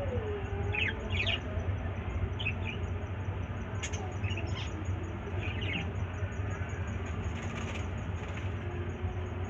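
Small pet birds chirping in short, scattered calls over a steady low hum.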